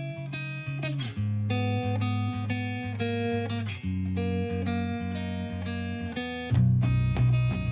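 Background music led by plucked guitar, its notes and chords changing about every half second, growing louder with a fuller bass about six and a half seconds in.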